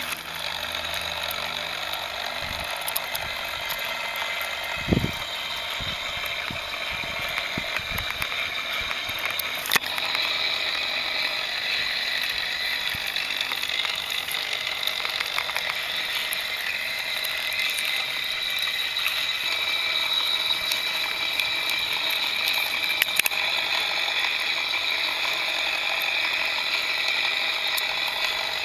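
Lego Technic 4x4's electric motor and plastic gear train running continuously with a steady whir and rapid clicking, with a few knocks in the first ten seconds as it drives over obstacles.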